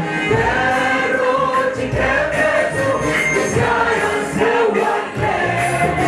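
Choir singing a gospel worship song, with the congregation joining in.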